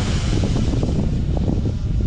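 Wind buffeting the microphone, with the rushing hiss of an electric ducted-fan model jet (E-flite F-15 Eagle, 64 mm EDF) fading as it flies away.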